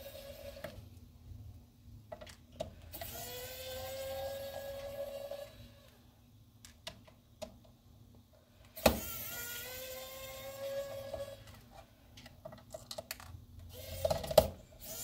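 Electric pen-style precision screwdriver running in spells of two to three seconds, backing out small screws. Its motor whine rises in pitch as it spins up, then holds steady. Between spells come light clicks and taps of handling, with a sharper click about nine seconds in and another near the end.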